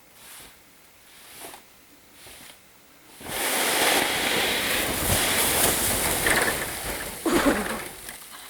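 A mass of snow sliding off a garage roof after being cut loose with a wire: a sudden rushing whoosh about three seconds in that lasts some four seconds, then trails off.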